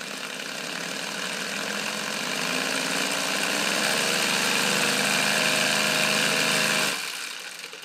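3D-printed three-cylinder radial compressed-air engine running with a propeller: a hiss of exhausting air over a pulsing hum that grows louder and rises in pitch as the engine speeds up. About seven seconds in the sound drops sharply and fades away.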